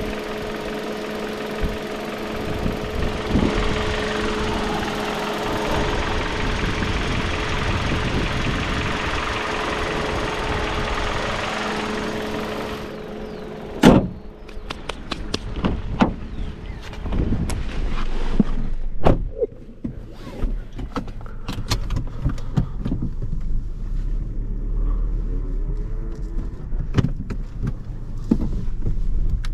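Hyundai i30's 1.4-litre four-cylinder petrol engine idling steadily, heard close, with a constant whine over it. Near the middle the idle sound drops away and a single loud bang follows, then scattered clicks and knocks over a low rumble.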